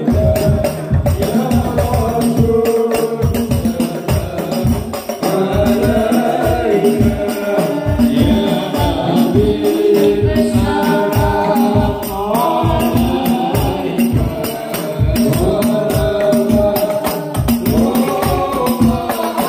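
Sholawat devotional singing by a group of voices over a steady drum beat, played loud through a PA sound system.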